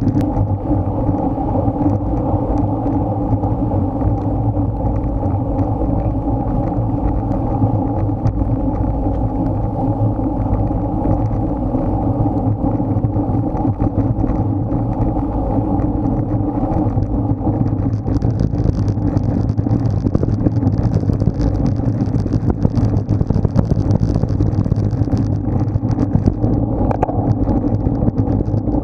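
Steady wind rushing over a Garmin Virb Ultra 30 action camera's microphone on a road bike ride at race speed, with a fainter high hiss that comes and goes.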